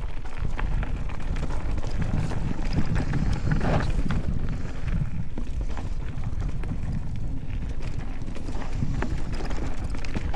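Wind buffeting the microphone of a camera moving along a dirt trail, a steady low rumble with scattered clicks and rattles throughout.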